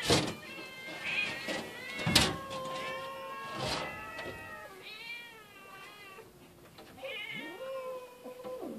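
Several cats meowing over one another, insistent and overlapping calls: hungry cats begging for food. Two sharp knocks sound near the start and about two seconds in.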